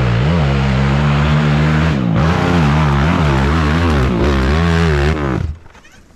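Engine of an off-road hill-climb machine revving hard, its pitch rising and falling over and over as the throttle is worked. It stops abruptly about five and a half seconds in.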